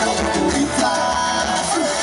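Upbeat Latin dance music with singing over a steady beat, the kind used for a Zumba workout.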